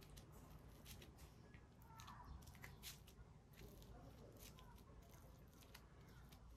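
Faint, scattered crackles and soft taps of sticky cooked rice being spread and pressed onto a dry sheet of laver (gim) with a plastic rice paddle and fingertips, over a low steady hum.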